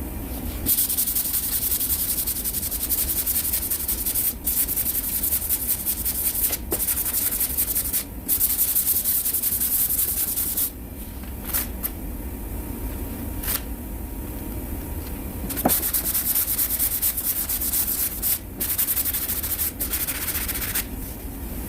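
Sandpaper on a hand sanding block rasping over cured body filler on a car panel, in stretches of a few seconds with brief pauses between.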